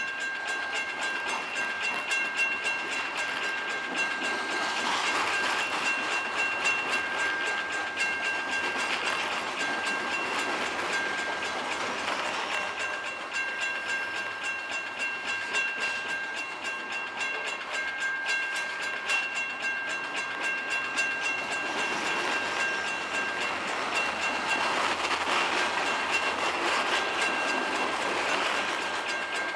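Freight train of covered hopper cars rolling past close by, the wheels clicking and clattering over the rail joints, with a steady high-pitched whine over the rumble.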